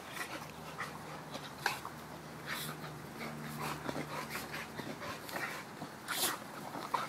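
Two pit bulls play-wrestling, with panting and many short, irregular mouth and throat noises.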